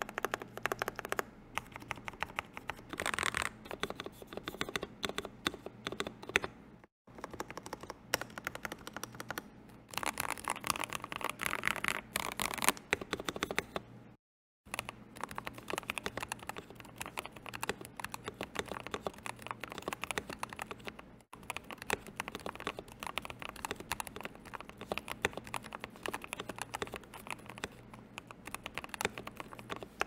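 Typing sound test on a Yunzii IF98 full-size gasket-mounted mechanical keyboard with PBT keycaps, its case stuffed with a t-shirt and its stabilizers clipped, sanded and relubed: a steady stream of key clacks with faster, louder runs of typing. The sound cuts out briefly twice, about seven and fourteen seconds in.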